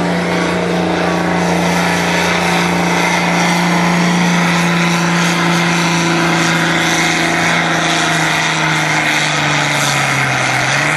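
Farm tractor's diesel engine running hard under full load as it drags a weighted tractor-pulling sled. The engine note holds steady, then sags lower about eight seconds in as the engine labours.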